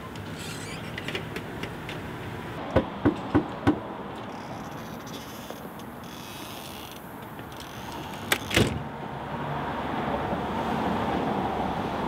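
Four quick knocks on a front door, about a second and a half in all, over a steady hum of street noise. Later, a click and a short rattle as the door is unlatched.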